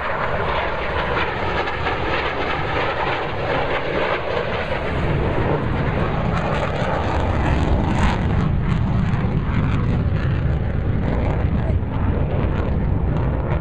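Loud, steady jet engine noise of an F/A-18 Hornet fighter flying past overhead, with a sweeping, falling tone through the first few seconds.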